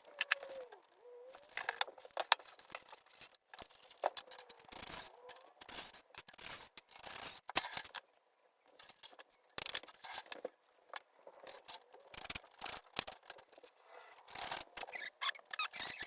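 Irregular clicks, scrapes and rustling of hands handling PC components and their plastic parts and packaging, with a brief pause about halfway through.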